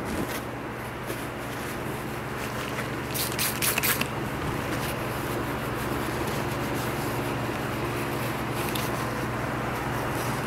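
Paper towel wiping and rubbing over the metal casing of an industrial sewing machine, with a short cluster of sharp rustling scrapes about three seconds in and another near the end, over a steady low hum.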